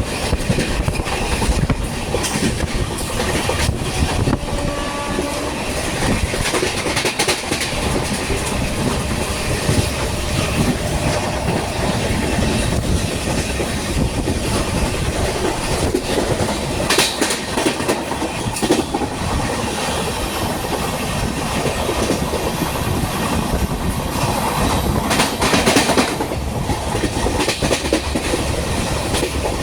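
Express train running at high speed, its wheels clattering over the rail joints in a continuous loud rush, with a few sharper clanks about halfway through and near the end.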